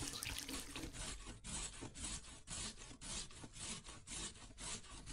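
Rhythmic scrubbing or scraping strokes by hand during household chores, about two a second, fairly faint.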